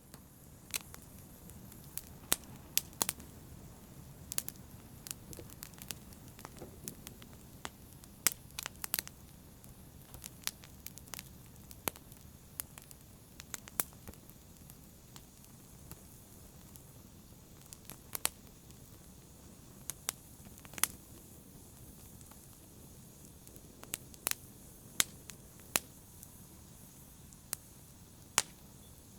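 Fire crackling: irregular sharp pops and snaps, a few every couple of seconds, over a soft steady hiss.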